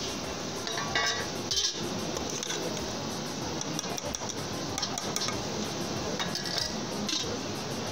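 Long steel ladle stirring minced meat simmering in its own liquid in an aluminium pot, clinking and scraping against the pot a few times over a steady background hiss.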